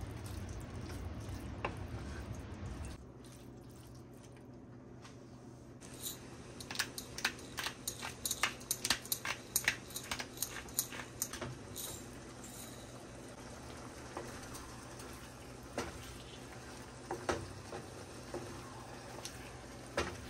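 Minced beef and onion frying quietly in a nonstick pan, with a wooden spatula tapping and scraping against the pan: a quick run of strokes about midway, then a few scattered ones.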